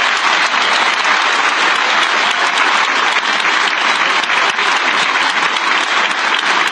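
A large crowd applauding, a dense steady clapping that does not let up.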